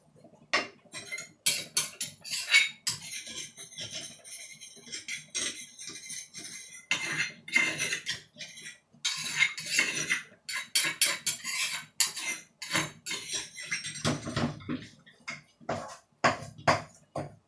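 Wooden spatula scraping and knocking against a metal frying pan as food is stir-fried, in a fast irregular clatter with stretches of scratchy hiss. A spoon clinks against a bowl now and then.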